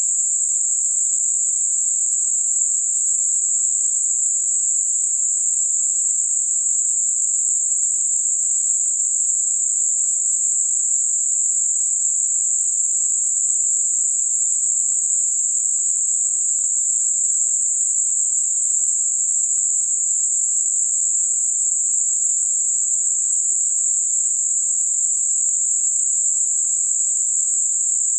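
Steady, high-pitched hiss of synthetic 7.5 kHz Gaussian narrowband noise, a band of noise with nothing low in it, made for masking high-frequency tinnitus.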